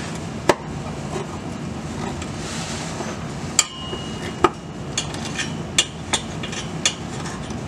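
Sharp clicks and taps of a long hex key fitted into and turned in the bolts of a driveshaft center-support bearing carrier, about seven irregular clicks over a steady low hum. A brief high squeak sounds about three and a half seconds in.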